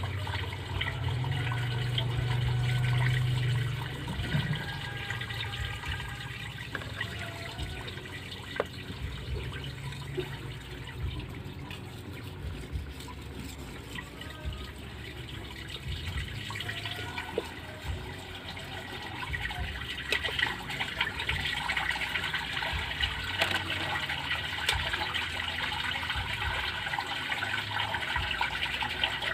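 Steel golok blade stroked back and forth over a wet Yudistira natural whetstone, a repeated wet scraping swish that grows louder and busier about two-thirds of the way through. A steady low hum sounds in the first few seconds.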